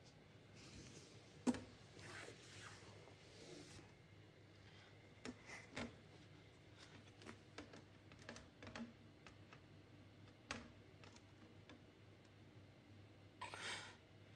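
Quiet room with scattered light clicks and knocks, the sharpest about a second and a half in, soft rustling in the first few seconds and a short rustle near the end.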